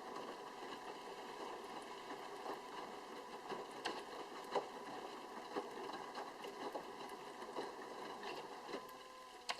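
Sharp drum washing machine washing: water sloshing and wet laundry tumbling as the drum turns, with lots of small irregular splashes and knocks over the machine's steady hum. Near the end the tumbling stops and only a steady motor hum is left.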